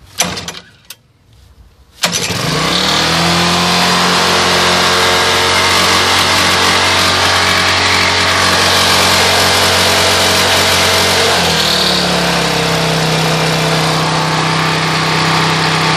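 Briggs & Stratton 6.75 single-cylinder lawn mower engine starting: a couple of brief clatters, then it catches about two seconds in, its note rises and settles into a steady run. The note changes about twelve seconds in.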